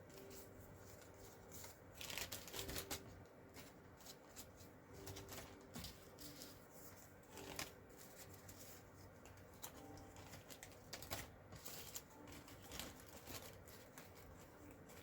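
Faint rustling and shuffling of small cardstock die-cut pieces being sorted by hand, in short scattered bursts.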